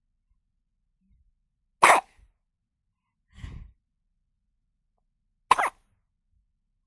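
Newborn baby hiccuping: two sharp, short hiccups about four seconds apart, with a softer, lower sound between them.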